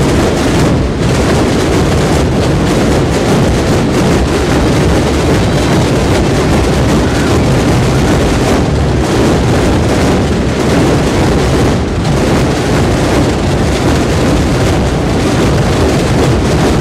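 Massed drumming: hundreds of snare drums and large rope-tensioned bass drums (bombos) beaten together at once. They merge into one loud, continuous, unbroken rumble with no single beat standing out.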